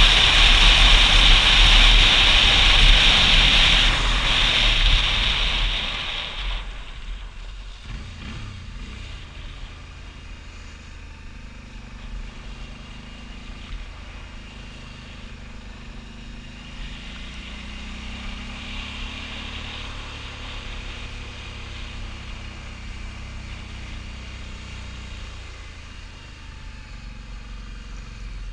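Loud wind rush on a helmet-mounted camera while riding a motorcycle, which dies away about six seconds in as the bike slows. It leaves the motorcycle's engine running at low speed, its pitch rising and falling gently.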